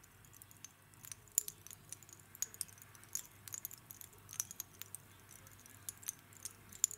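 Freshly pan-roasted pumpkin seeds crackling faintly as they cool: scattered light, sharp clicks, several a second and irregular. The crackling is the sign that the seeds are still finishing roasting in their own heat.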